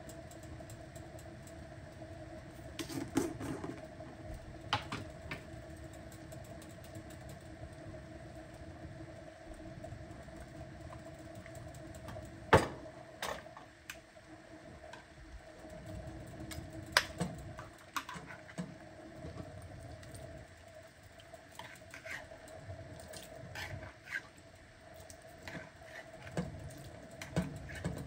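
Kitchen sounds: a faint steady hum with scattered light clicks and knocks of utensils and cookware, one sharper knock a little before halfway.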